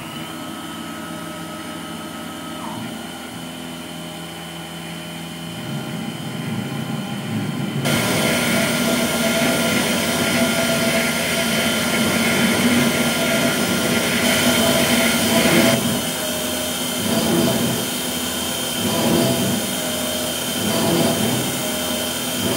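Sieg KX3S benchtop CNC mill finishing a metal block with a 3 mm carbide ball end mill: a steady spindle whine under cutting noise. The cutting noise gets louder about eight seconds in. Near the end it swells and fades in a repeating rhythm as the toolpath moves.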